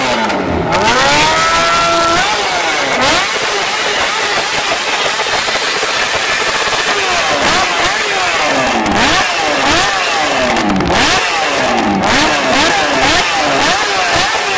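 Honda CBR sport bike engine revved while standing still. A long rev climbs in pitch near the start, then short throttle blips follow, each quickly rising and falling, less than a second apart through the second half.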